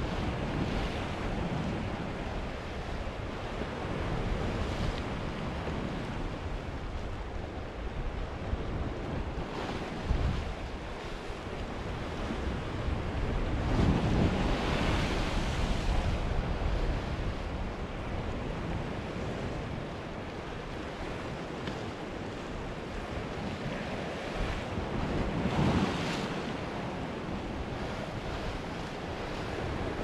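Sea waves washing and breaking against a rocky shore, a steady wash that swells louder about halfway through and again later on. Wind rumbles on the microphone underneath, with a brief thump about a third of the way in.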